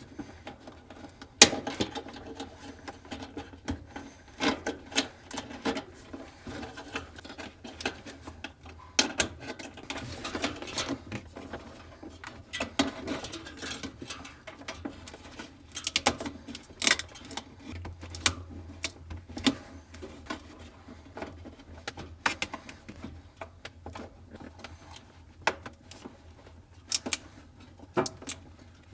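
Hands fitting plastic wiring parts inside a refrigerator's freezer compartment: irregular clicks, taps and rubbing as a heater's electrical connector, rubber grommet and wire retaining clip are pushed into place.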